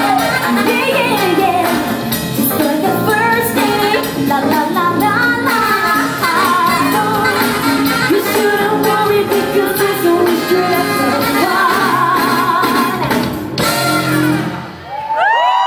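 A band playing pop music with a lead vocal over bass and drums. The music dips briefly just before the end.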